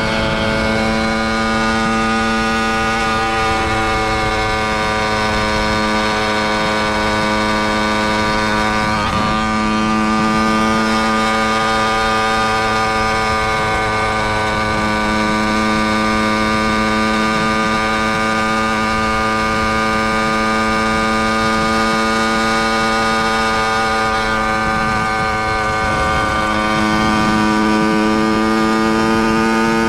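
Small engine of a motorized bicycle running at a steady cruising speed with an even pitch, which climbs a little near the end.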